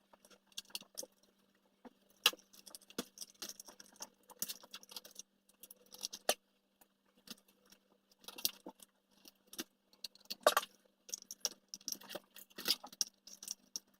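Scattered small clicks and rattles of plastic and metal parts of a REMO 1631 SMAX RC truck being handled and unscrewed during disassembly, with a faint steady hum underneath.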